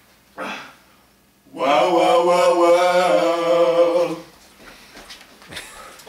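Male voices singing a cappella, holding one long closing note of a doo-wop for about two and a half seconds, after a short vocal sound near the start.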